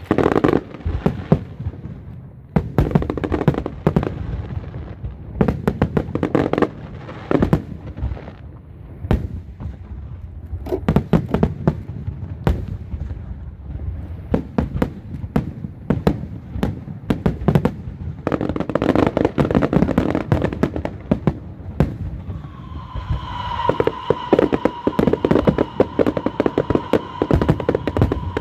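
A long, irregular run of sharp bangs and crackles, some in quick clusters. In the last few seconds a steady high tone with overtones sounds over them.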